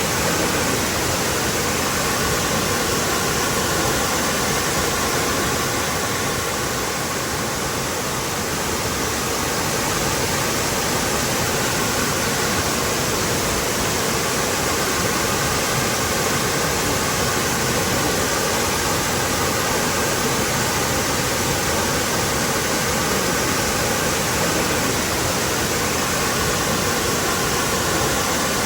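Waterfall: water pouring down in a steady, dense rush with no breaks.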